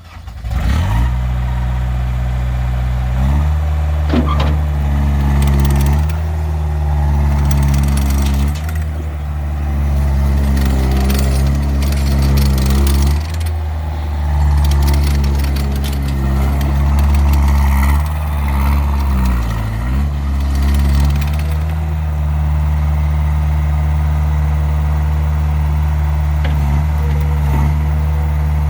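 Diesel engine of a 2011 Terex PT50 compact track loader firing up, then running. It speeds up a few seconds in and changes speed several times through the middle, with a brief drop near the two-thirds mark, then settles to a steady run.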